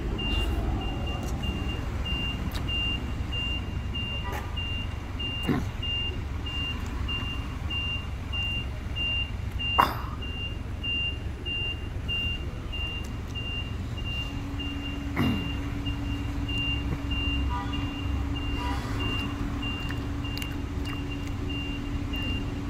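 An electronic warning beeper sounds one high beep over and over, about two to three times a second, over a low rumble of traffic. A low steady hum joins a little past halfway, and a few short knocks sound, the sharpest about ten seconds in.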